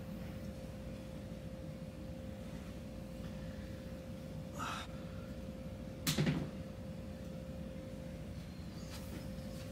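Steady room hum with a thin constant tone. One short thump about six seconds in, with a fainter brushing sound shortly before it.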